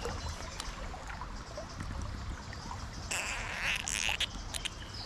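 Steady sound of river water, with a brief burst of splashing about three seconds in from a hooked trout thrashing in the landing net.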